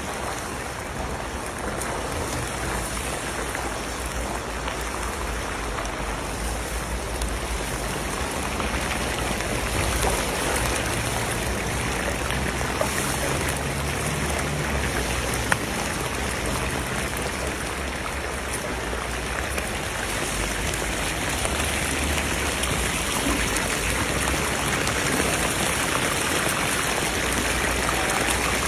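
Chunks of meat deep-frying in a huge cauldron (kazan) of hot oil: a steady, dense sizzling and bubbling, with a couple of sharp ticks midway.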